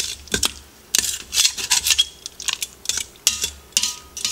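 Metal tongs scraping and knocking across the bottom of a stainless steel Instant Pot inner pot, through the liquid, in repeated irregular strokes with brief metallic ringing. This is deglazing: working the stuck-on browned bits loose so the cooker won't give its burn warning.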